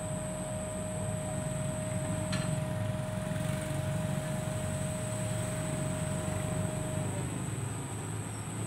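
A vehicle engine running steadily with a low rumble, and a steady higher whine over it that cuts off about seven seconds in with a slight drop in pitch.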